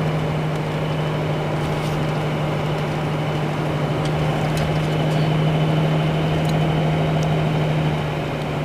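Steady engine and road noise heard from inside a moving truck's cabin, with a constant low drone.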